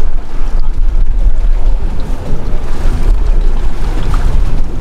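Wind buffeting the microphone in a heavy, uneven low rumble, with the wash of the open sea behind it.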